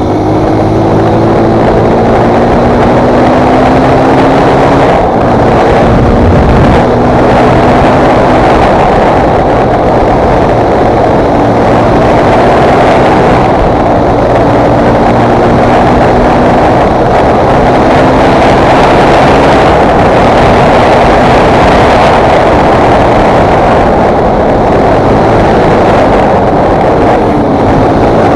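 Fantic Motard 125 Performance's single-cylinder four-stroke engine running under way, its pitch rising and falling again and again as it revs through the gears, over a steady rushing noise.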